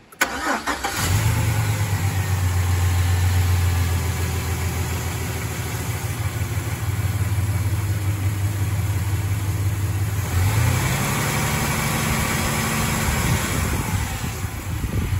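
2005 Chevrolet Silverado engine cranking and catching, then idling steadily. About ten seconds in it is revved and held at a higher, steady speed for a few seconds, then drops back toward idle.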